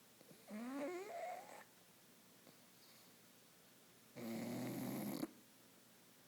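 Sleeping pug snoring: two snoring breaths, the first a squeaky note that rises in pitch, the second a rougher, steadier snore about a second long near the end.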